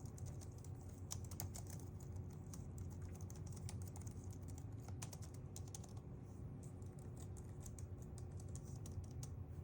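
Typing on a Logitech wireless keyboard: quick, soft key clicks at an irregular pace, thinning briefly about six seconds in, over a steady low hum.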